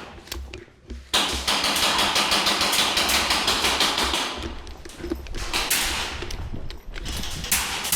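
Airsoft replica guns firing in rapid rattling bursts, starting about a second in.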